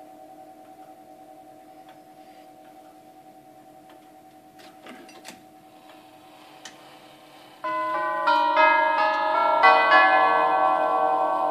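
Herschede nine-tube grandfather clock's tubular chimes begin ringing a melody of overlapping bell notes about two-thirds of the way in, as the minute hand reaches the hour. Before that, the ring of the previous chime dies away under a few faint clicks as the hand is turned.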